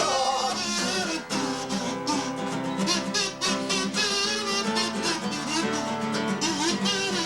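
Instrumental break in a folk song: strummed acoustic guitar with a wavering melody line over it.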